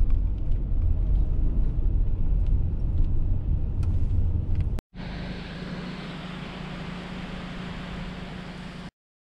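Road noise inside a moving car: a low rumble of tyres and engine, with a few faint clicks. About five seconds in it cuts off and gives way to a quieter, steady hiss with a low hum, which stops shortly before the end.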